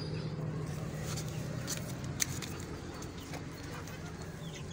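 A few light knocks and scuffs of a clay water bowl being carried and set down, over a steady low hum.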